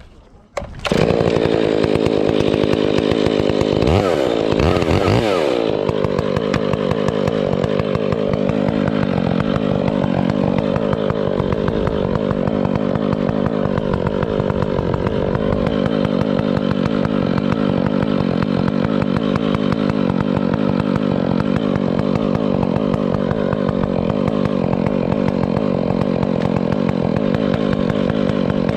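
Stihl chainsaw bursting into sound about a second in, its engine note swooping up and down briefly a few seconds later, then running steadily.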